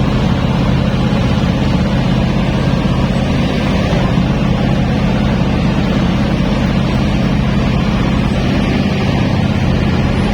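A large engine running steadily, a constant low drone with no change in pitch.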